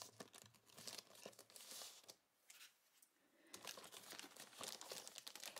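Thin clear plastic bag faintly crinkling and crackling as it is pulled off a toy's cardboard-and-plastic display box, with a short lull a little after the middle.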